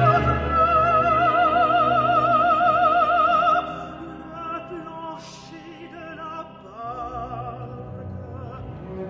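Operatic soprano with orchestra: she holds a long, loud high note with wide vibrato that breaks off about three and a half seconds in. The orchestra goes on more softly, and she comes back in with a quieter phrase near the end.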